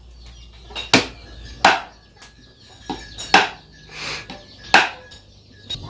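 Cleaver chopping through chicken on a wooden chopping board: irregular sharp strikes, about four heavy ones with lighter taps between.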